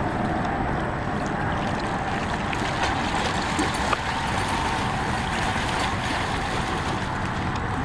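Steady rushing noise of open water and wind, with no clear single event in it.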